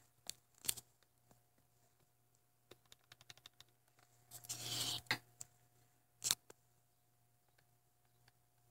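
Faint scattered clicks and taps of handling the device, with a quick run of small ticks about three seconds in, a short rustling hiss near the middle and a sharper click about six seconds in.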